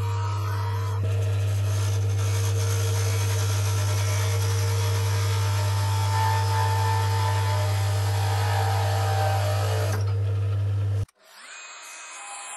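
Wood lathe running with a steady motor hum while a turning chisel cuts a spinning wooden dowel, making a continuous hissing shaving noise. The cutting stops shortly before the sound cuts off abruptly near the end, and a much fainter sound follows.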